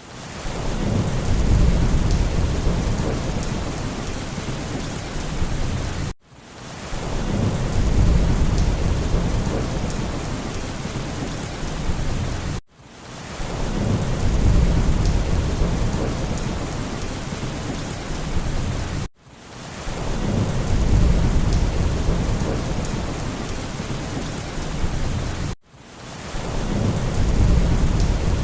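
Rain with low rolling thunder, played as a short loop that repeats about every six and a half seconds. Each pass opens with a swell of deep rumble that eases into steady rain hiss, and the sound cuts out for an instant between passes.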